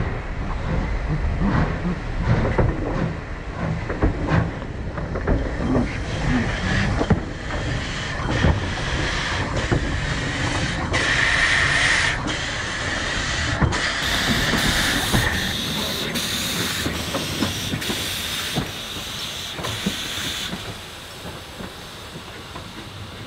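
1874 Haydock Foundry steam tank locomotive working: exhaust chuffs, steam hiss and the clanking of its valve gear and motion, with a stronger hiss of steam about eleven seconds in. The sound becomes quieter and more distant in the last few seconds.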